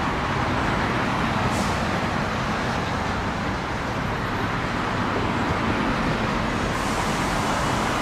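Steady road traffic noise, an even wash of passing cars and vehicles without distinct events.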